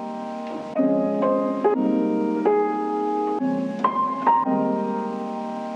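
Soft instrumental background music with held chords that change every second or so.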